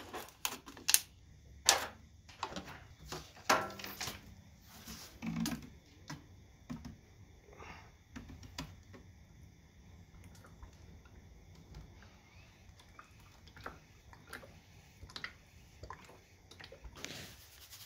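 Scattered light clicks and knocks of plastic being handled: a cut-off water bottle is pushed into the filler of a hydraulic power pack's plastic oil reservoir as a funnel, the knocks densest in the first few seconds and fainter after. Near the end a short rush of noise as hydraulic oil pours into the funnel.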